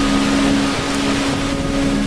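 Steady rush of falling water, with soft low tones of a meditation drone held underneath.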